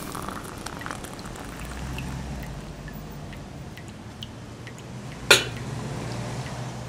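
A metal enamel coffee pot set down on a gas stove's iron grate: one sharp clank about five seconds in, over a low steady hum and a few faint ticks.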